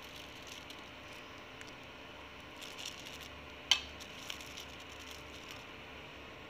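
Faint handling noises from a plastic bag filled with jalebi batter, over a steady low hiss, with one sharp click a little past the middle.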